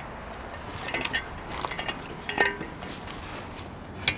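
A few irregular light clinks and knocks of hard objects being handled, spread out over the few seconds.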